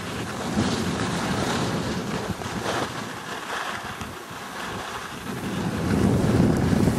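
Wind rushing over the microphone while skiing downhill, mixed with the hiss of skis sliding on snow; it grows louder near the end.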